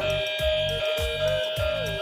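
Battery-operated toy steam train engine playing its built-in electronic music: a steady high tone and a short melody over a low beat about three times a second.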